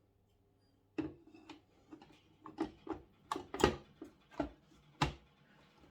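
Plastic clicks and knocks as the coffee machine's water tank is handled: about ten sharp, irregular taps over a few seconds, starting about a second in.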